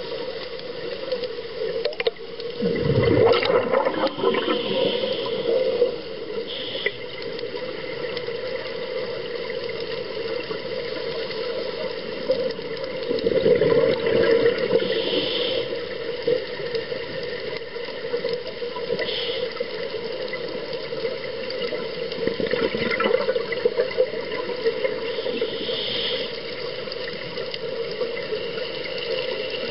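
A scuba diver breathing through a regulator, recorded underwater: a bubbling rush of exhaled air three times, about ten seconds apart, over a steady underwater hiss.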